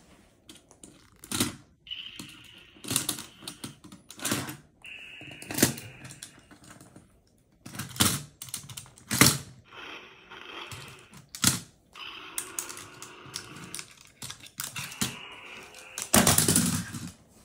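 Plastic toy truck being knocked, pecked and pushed over a hardwood floor by a Moluccan cockatoo's beak: irregular sharp clicks and knocks, with several short whirring stretches of about a second as its wheels spin. A louder burst of noise comes near the end.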